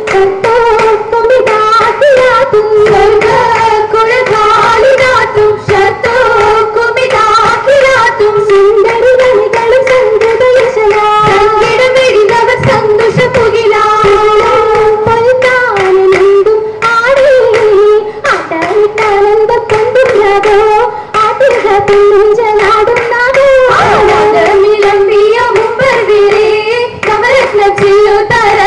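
Oppana song: a Mappilappattu (Mappila song) sung in one continuous melody by high voices, accompanied by the dancers' rhythmic hand clapping.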